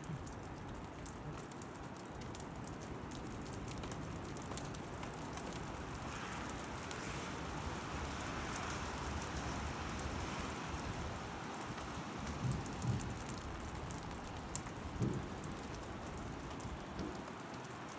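Steady hiss and patter of light drizzle, with fine drop ticks throughout and a few soft low thumps a little past halfway.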